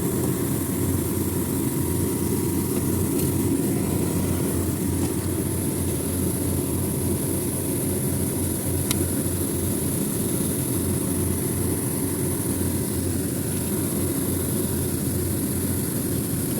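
Steady mechanical drone of running machinery, with a single light click about nine seconds in.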